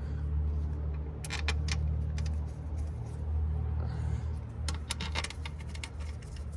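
Small metal clicks and clinks of valve cover bolts being set into their holes by hand: a few quick clicks about a second in and another cluster near five seconds. A steady low hum runs underneath.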